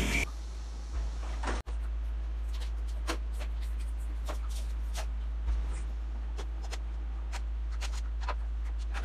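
Scattered light clicks and knocks over a steady low hum.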